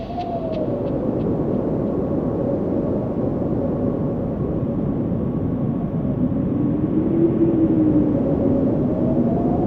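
Steady low rushing roar of a large waterfall, with soft synth tones slowly swelling and gliding over it.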